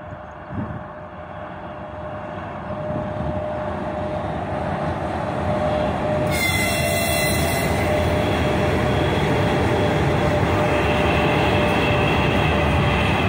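3ES5K Ermak three-section electric locomotive with a heavy freight train passing slowly at close range, its rumble building as it approaches, with a faint steady whine. About six seconds in, a short high-pitched blast from the locomotive lasts just over a second.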